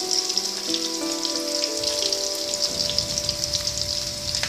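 Parboiled baby potatoes frying in hot mustard oil in a kadai: a steady sizzle with fine crackles.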